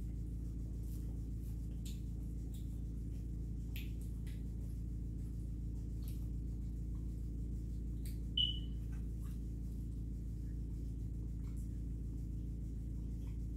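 Mouth sounds of chewing pizza: faint wet clicks and smacks scattered over a steady low hum, with one short high squeak about eight seconds in.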